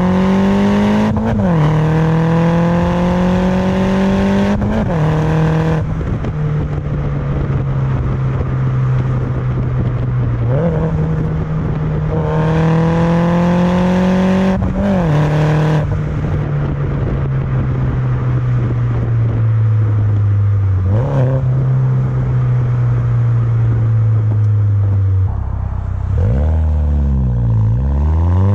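Mini Cooper S R56's turbocharged 1.6-litre four-cylinder engine with a catless downpipe, pulling under load. The pitch climbs and then drops sharply several times, as with gear changes, and there are longer stretches of slowly falling pitch.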